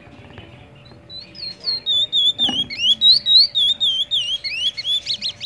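Young male chestnut-bellied seed finch (curió), still in brown juvenile plumage, singing: a run of loud, clear whistled notes that slide up and down in pitch, starting about a second in.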